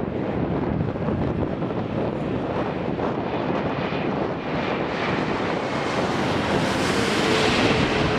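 Boeing 787-8 airliner on final approach passing low overhead, its Rolls-Royce Trent 1000 turbofans making a steady rushing jet noise. The noise swells and gains a bright hiss from about five seconds in as the aircraft comes overhead, with a faint engine whine near the end.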